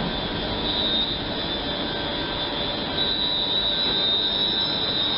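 London Midland Class 350 Desiro electric multiple unit moving past along the platform: a steady rumble with a high steady whine over it, which fades for a couple of seconds about half a second in and then comes back.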